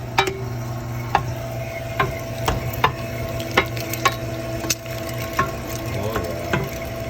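Electric meat grinder running with a steady hum while grinding beef, with sharp irregular clicks and crackles about every half second to second.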